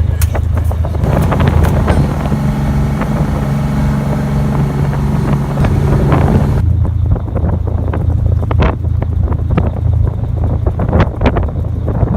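An engine running steadily with wind on the microphone. For the first half a set of steady higher tones sits over the low hum; about two-thirds of the way through the hiss drops away abruptly, leaving the low hum and scattered clicks.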